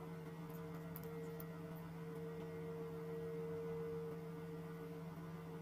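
A steady low hum with a faint hiss and no other sounds.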